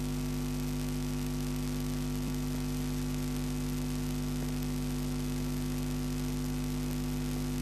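Steady electrical hum with a faint hiss, unchanging throughout.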